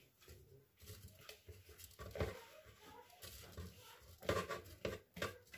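Faint soft knocks and scrapes as ground sesame paste is transferred into a plastic blender jug, with several sharper taps near the end.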